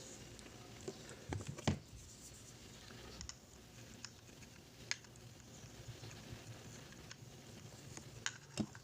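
Light clicks, taps and scratches of small parts of a nebulizer's compressor being handled and cleaned, with a few sharper knocks about a second and a half in and again near the end.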